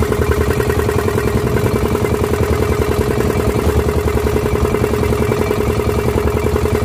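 Motorized outrigger bangka's engine running steadily while under way, with an even, rapid pulsing beat.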